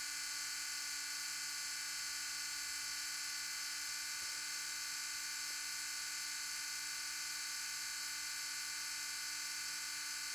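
Tekin Gen 2 21.5 brushless motor spinning unloaded on a motor analyzer during a timing test, its can timing set to 10 degrees: a steady, high-pitched whine made of several fixed tones.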